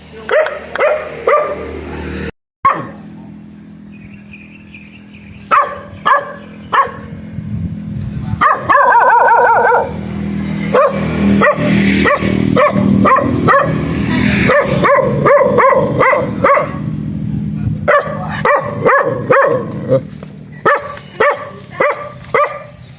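A dog barking over and over in runs of short, sharp barks, with a fast flurry of barks about nine seconds in.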